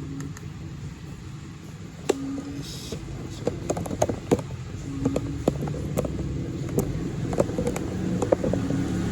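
A run of irregular sharp clicks and taps, starting about two seconds in and going on until near the end, over a steady low hum.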